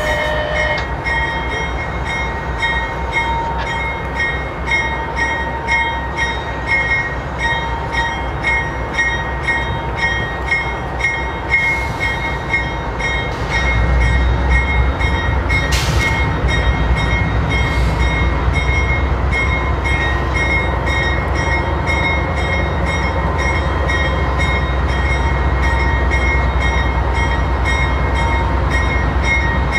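CSX freight train's GE diesel locomotives approaching slowly: a deep, steady engine rumble with a steady high whine over it. The rumble grows louder about halfway through as the engines draw nearer.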